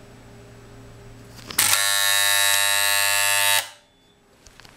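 Loud, steady electrical buzz of a current-injection test rig pushing about 1800 A of mains current through one pole of an A3144 circuit breaker. It starts abruptly about a second and a half in, holds for about two seconds and cuts off at the end of the timed pulse. No trip click comes with it: the breaker's electromagnetic release fails to trip at this current, a fault that condemns the release.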